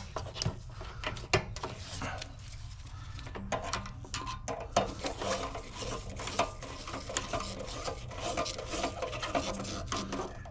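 Gloved hands working on the water heater fittings: rubbing and scraping with many small clicks and a few short squeaks.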